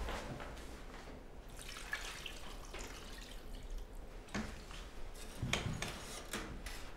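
Liquid poured and dripping into a metal cooking pot, with a few light clinks of a ladle against the pot.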